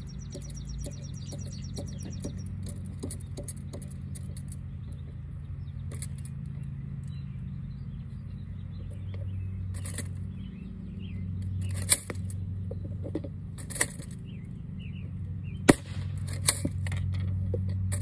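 Blank airsoft shower shells going off in a homemade M3 anti-tank gun lookalike: several sharp pops, some with a short hiss of gas, in the second half, with lighter clicks of the breech being handled between them. A steady low hum runs underneath.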